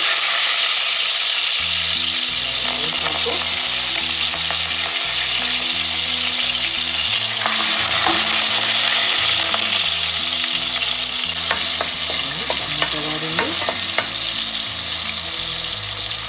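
Hot oil sizzling steadily in a steel pot on a gas stove, a tempering of fenugreek seeds for tamarind gravy, with a few light clicks as the pot is handled.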